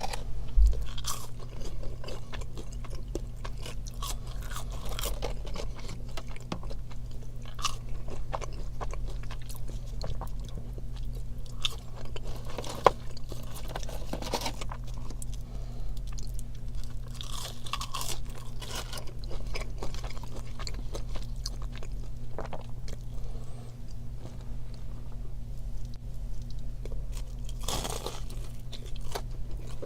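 Crunchy bites and chewing of a Raising Cane's fast-food meal, eaten close to the microphone in irregular crunches with quieter chewing between them. A steady low hum runs underneath.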